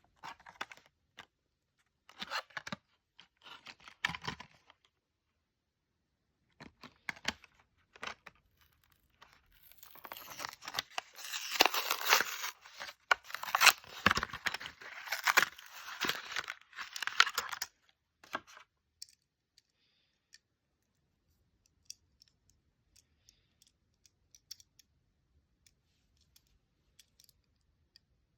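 Packaging of a Hot Wheels diecast car being torn open: short bursts of tearing and crinkling, then a longer stretch of tearing and rustling in the middle. Only faint clicks and handling noises follow near the end.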